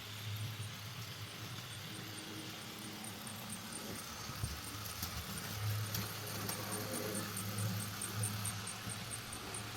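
Trix 'Der Adler' model train running on its track, its motor humming steadily, with a rapid even light ticking of about three or four ticks a second and a few sharper clicks.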